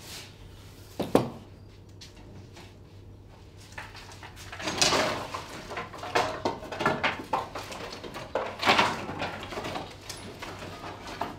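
Thin split firewood clattering and scraping as pieces are pushed into a brick wood-fired bread oven to fire it, with a sharp knock about a second in. The clatter comes in several busy clusters in the second half.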